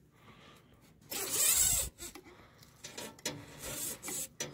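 Rustling and scraping from a hand working among engine wiring and metal pipes, in irregular short bursts, the loudest lasting nearly a second about a second in. No engine is running.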